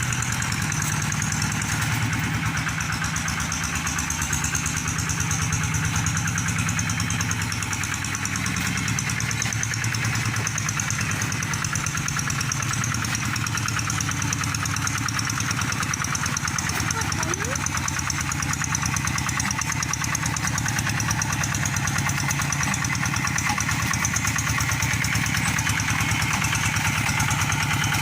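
Tractor engine running steadily with a fast, even beat while plowing a rice paddy.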